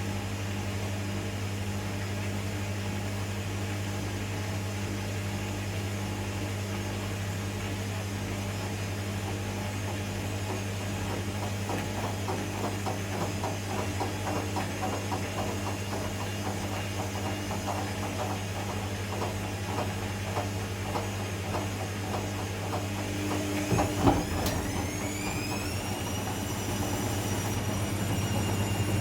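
Zanussi ZE 16 washing machine running with a steady low hum, its drum knocking rhythmically for several seconds. A single loud knock comes near the end, then the drum motor's whine rises and levels off as the drum speeds up into the final spin with an unbalanced load.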